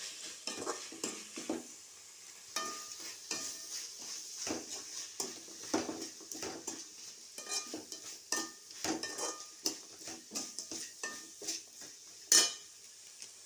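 Quail pieces sizzling in oil in a pan while a spoon stirs and sautés them, scraping and knocking against the pan again and again. One loud sharp knock near the end.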